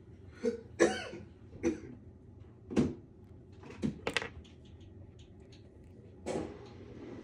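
A person coughing in several short, separate bursts, about seven in all, over a faint steady low hum.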